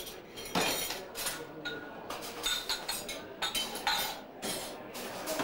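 Cutlery and drinking glasses clinking as they are handled and set down: a run of separate sharp clinks, some ringing briefly.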